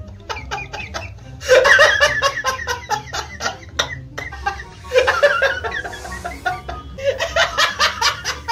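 A man laughing hard in repeated bursts, loudest about a second and a half in, again about five seconds in and near the end, over background music with an even beat.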